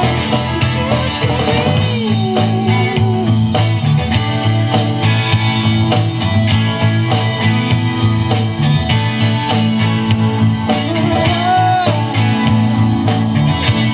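Live rock band playing with electric guitars, bass guitar, keyboard and drum kit, over a steady drum beat. A lead line bends in pitch now and then.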